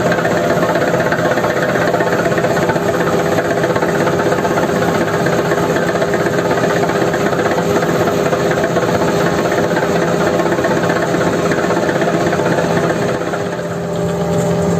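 Diesel engine of heavy farm machinery running steadily at a constant speed, with a brief dip in loudness near the end.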